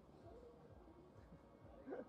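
Near silence: faint outdoor ambience, with one brief, faint rising chirp near the end.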